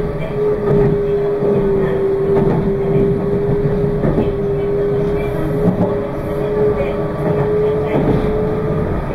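Meitetsu 2200 series electric train running at steady speed, heard from aboard. A steady whine holds one pitch over the rumble of wheels on the track, with light clicks here and there.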